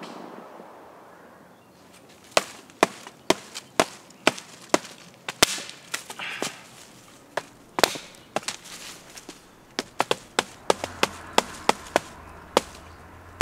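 Repeated sharp knocks of wood being chopped by hand, uneven but roughly two a second, starting about two seconds in. A low steady hum joins near the end.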